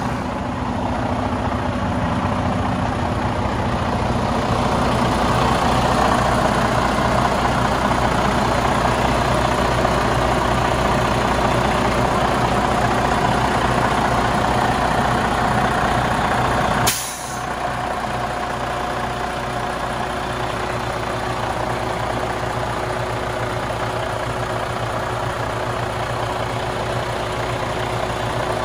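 2012 Freightliner Cascadia tractor's diesel engine idling steadily, heard close up at the open engine bay. A single brief sharp click comes a little past halfway.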